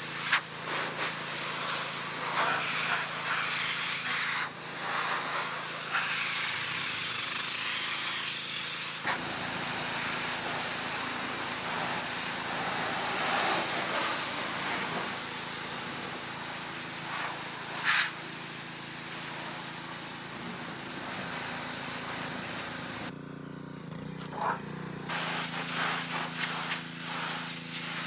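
Pressure washer spraying a high-pressure jet of water onto the rusty sheet-metal body of a 1965 VW Beetle, a steady hiss of spray on metal. The spray drops out for about two seconds near the end, then resumes.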